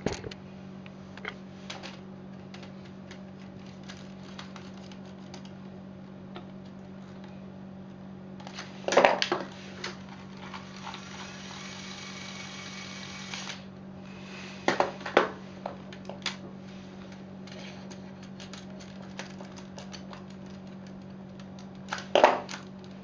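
Lego Technic plastic parts clicking and rattling as they are handled, locked and unlocked. Louder bursts of clatter come about nine, fifteen and twenty-two seconds in, over a steady low hum.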